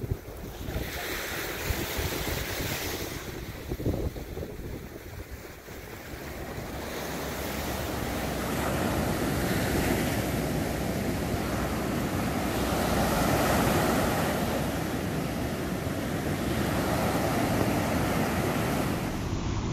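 Ocean surf breaking and washing up a sandy beach, growing louder about a third of the way in, then swelling and easing every few seconds, with wind on the microphone.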